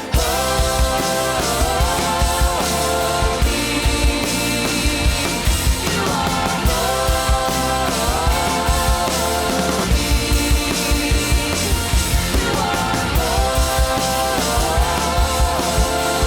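Live contemporary worship band playing full out, with a steady drum-kit beat under held melodic lines from voice and instruments.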